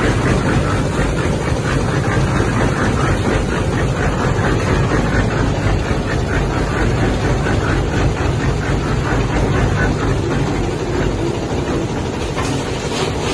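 Engine-driven concrete mixer with a built-in hoist, its engine running steadily while it works.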